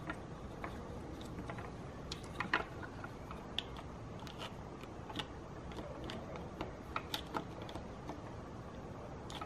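Irregular light clicks and taps of plastic Meccano parts being handled and bolted together: plastic strips, bolts and nuts knocking against one another. The loudest cluster of clicks comes about two and a half seconds in, with another around seven seconds.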